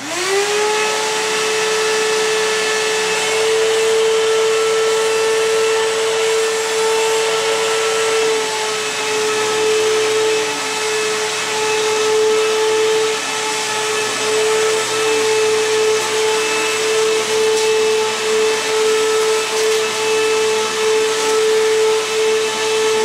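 Bissell Cleanview Helix 12-amp bagless upright vacuum switched on: its motor spins up quickly and settles into a steady high whine. From about eight seconds in, the sound swells and dips in a regular rhythm as the vacuum is pushed back and forth over carpet.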